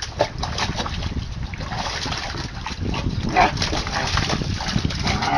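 German shepherd puppy splashing and pawing water in a plastic tub, a rapid, irregular churning of splashes. A short higher-pitched cry about three and a half seconds in.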